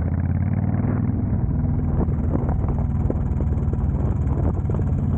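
Honda Fury's V-twin engine running through a Cobra Speedster Swept exhaust while the motorcycle is ridden along at a steady speed, a low, even exhaust note.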